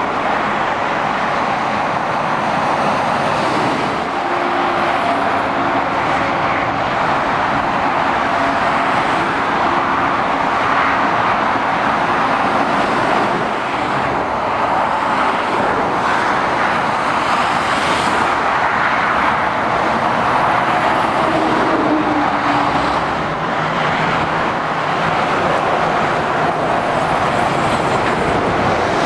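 Steady motorway traffic: tyre noise and the engines of heavy lorries and cars passing. The drone of a truck engine rises and fades as each lorry goes by.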